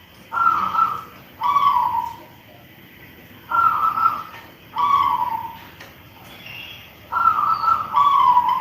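Zebra dove (perkutut) cooing: three phrases about three and a half seconds apart, each a higher steady coo followed by a lower coo that falls away.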